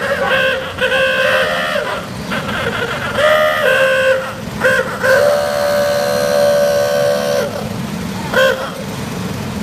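Horns on the Shriners' miniature parade cars honking: a run of short toots and one long held honk of about two and a half seconds, over the low rumble of the small cars' engines.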